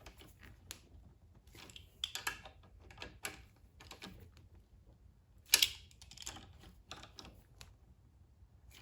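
Irregular light metallic clicks and taps from hand tools working the 10 mm valve-cover bolts on a small generator engine, with one sharper click about five and a half seconds in.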